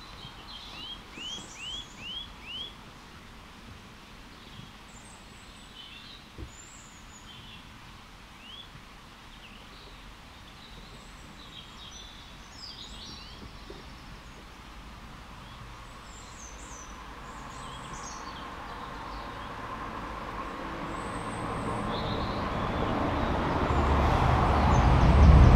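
Small birds chirping, with a quick run of five rising chirps near the start. From about halfway, a passing road vehicle approaches, its rumble and road noise growing steadily louder until it is loud near the end.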